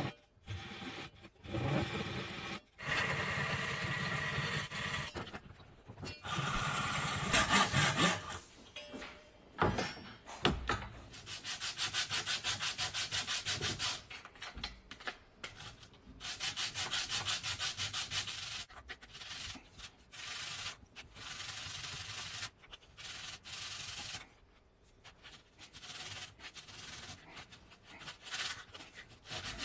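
A thin strip of wood rubbed by hand back and forth on a sheet of sandpaper lying flat on a bench: bursts of quick scratchy sanding strokes with short pauses between them.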